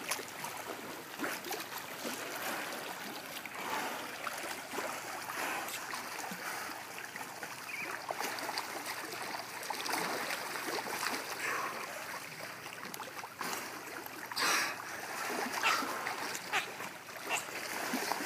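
Pool water splashing and lapping as dolphins surface and move at the edge of the pool, with a couple of sharper, louder splashes in the last few seconds.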